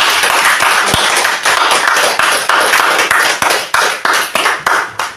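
Audience clapping, many quick close claps that die away near the end.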